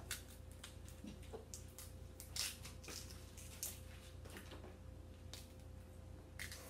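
Faint cracks and crackles of boiled shellfish shells being broken and peeled by hand, with a few sharper snaps, the loudest about two and a half seconds in.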